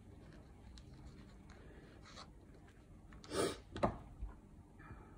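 Faint handling sounds of hands rubbing over a cloth-covered journal. There is one brief swish about three and a half seconds in, followed at once by a light tap.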